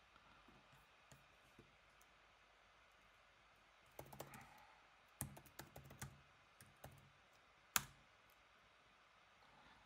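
Quiet typing on a computer keyboard as a terminal command is entered: two short runs of keystrokes about four and five to seven seconds in, then one sharper key tap near eight seconds, the Enter key starting the command.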